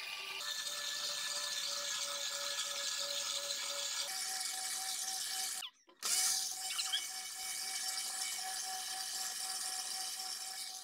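Electric countertop blender motor running steadily with a whine while blending a thin liquid mix. The whine steps up in pitch about four seconds in, and the sound breaks off for a moment a little past halfway, then carries on at the same pitch.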